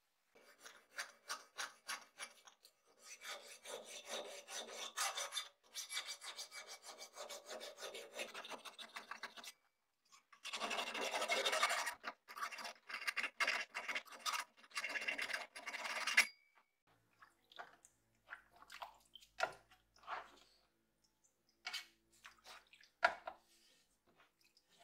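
Rasping, scraping strokes on the rusty steel blade of an old handmade sword, coming quickly one after another, with a denser stretch of scraping about halfway through. Then only scattered light knocks and clicks as the blade is handled.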